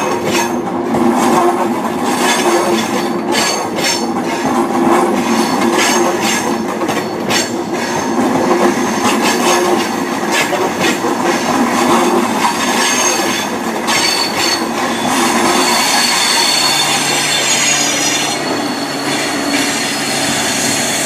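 High Speed Train (InterCity 125) passing through the station, its coach wheels clicking rapidly over the rail joints. In the later part the clicking gives way to a steadier sound with a high-pitched wheel squeal.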